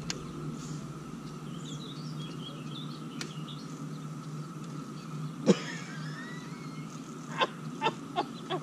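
Birds chirping over a steady low hum, with one sharp knock about five and a half seconds in and a quick run of lighter clicks near the end.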